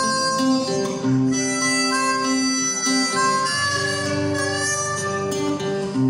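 Harmonica playing a melody of held notes over two acoustic guitars, an instrumental break in a live song.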